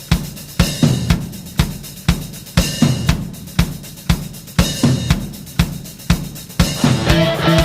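Background music: a rock drum beat of kick, snare and cymbals at about two beats a second, with sustained instrument notes coming in near the end.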